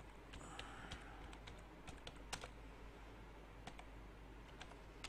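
Computer keyboard being typed on: faint, irregular key clicks, with a steady low hum underneath.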